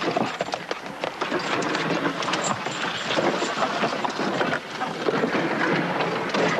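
Cut firewood clattering and knocking, a continuous dense run of wooden knocks as the wood is brought in and stacked.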